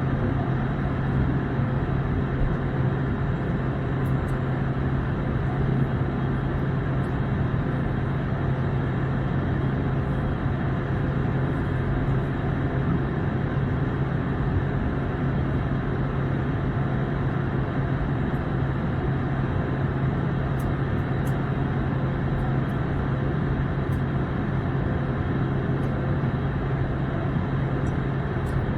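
Steady in-flight cabin noise of an Airbus A321: an even rush of airflow with a constant low engine hum, unchanging throughout.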